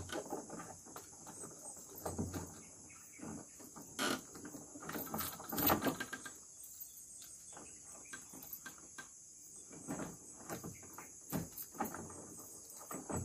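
Padlock and chain on a wooden door being worked with a key: scattered small metal clicks and rattles, a cluster of louder knocks around the middle. A steady high insect buzz runs underneath.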